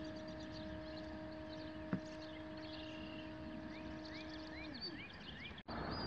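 Astro-Physics Mach2GTO mount's drive motors humming steadily while slewing at 600x go-to speed, smooth and free of the vibration noise that appears at higher slew rates. The hum stops with a short falling whine about three-quarters of the way through. Small birds chirp repeatedly in the background, and there is one sharp click about two seconds in.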